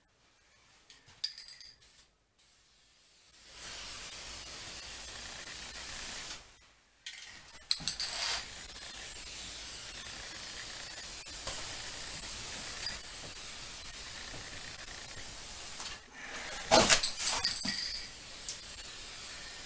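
Aerosol can of spray polyurethane hissing in two long sprays, a short one and then one of about nine seconds. Between sprays the can is shaken, its mixing ball rattling in short clattering bursts, the loudest near the end.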